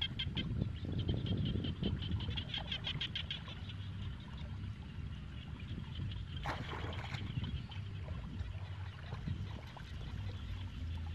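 Legs wading and sloshing through shallow water with a low rumble, over a rapid, pulsing high-pitched animal call during the first few seconds; a short burst of noise comes about six and a half seconds in.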